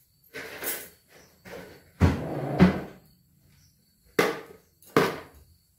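Kitchen clatter: a run of knocks as plastic storage jars of biscuits are taken out and handled, with two sharp knocks near the end.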